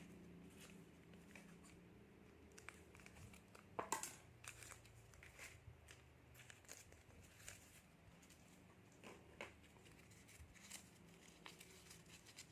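Faint crinkling and crackling of a plastic snack packet being torn open and handled, with scattered sharper crackles, the loudest about four seconds in, over a faint low hum.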